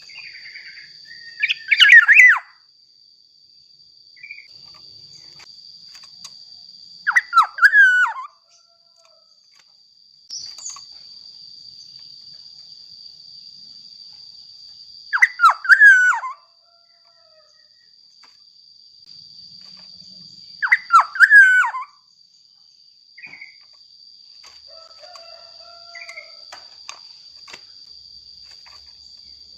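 Black-naped oriole (kepodang mas) giving short, loud fluting whistled phrases, four times, spaced several seconds apart. A thin, steady high-pitched tone runs behind them.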